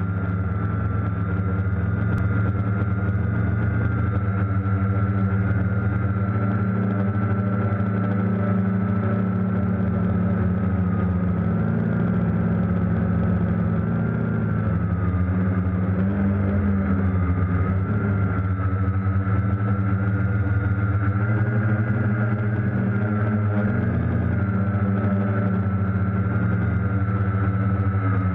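Quadcopter drone's electric motors and propellers, picked up by its onboard camera: a steady drone with a higher whine that wavers slightly in pitch as the copter adjusts its flight.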